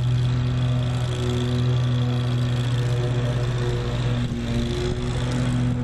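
An engine running steadily: a constant low hum.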